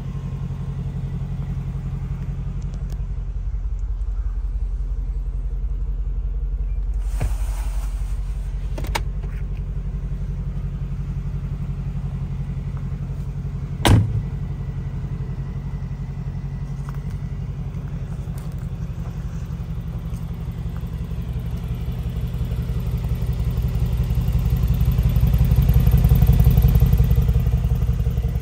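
Mercedes-AMG G63's twin-turbo V8 idling steadily, a little louder near the end. About halfway through comes a single sharp thud as the side-hinged rear door is shut.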